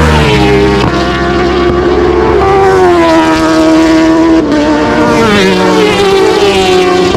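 Racing motorcycle engine at high revs under hard acceleration. Its pitch climbs and then drops back several times as it shifts up through the gears.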